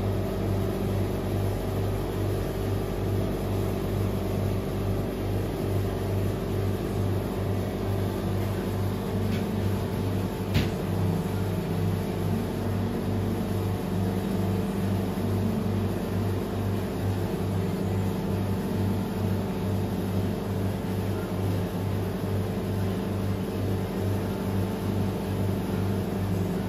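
Steady mechanical hum with a low throb pulsing evenly about twice a second, and a single sharp click about ten seconds in.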